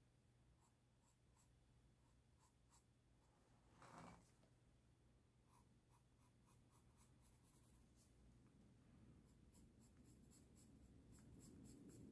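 Faint scratching of sketching strokes: a drawing tool moving in short, quick strokes across the drawing surface, with one louder brief rustle about four seconds in.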